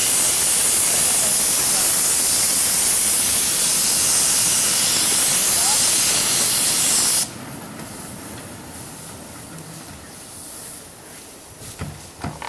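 Small live-steam locomotive venting steam with a loud, steady hiss that cuts off abruptly about seven seconds in. A few light knocks follow near the end.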